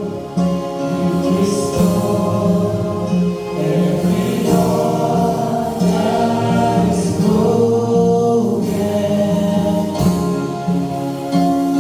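A choir singing gospel music.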